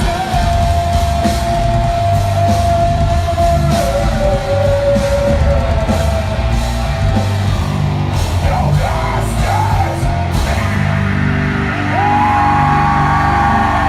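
Heavy rock music with a pounding drum beat, distorted guitar and a long held sung note. About twelve seconds in, a higher tone rises, holds and then falls away over the band.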